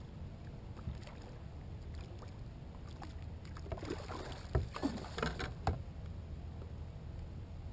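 Water lapping against a kayak hull under a steady low wind rumble on the camera's microphone, with a cluster of short sharp noises about four to six seconds in.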